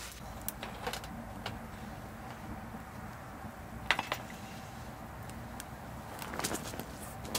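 Camp cookware being handled on a metal mesh table: light clicks and clinks, one sharp knock about four seconds in, and a short run of clatter near the end.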